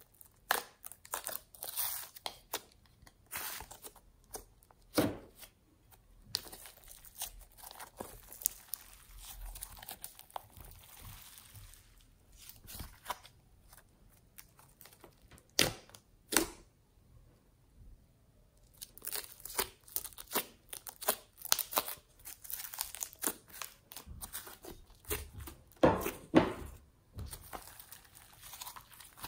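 Homemade slime being squished, pressed and stretched by hand: wet crackling and popping of trapped air, with a few sharp, louder pops.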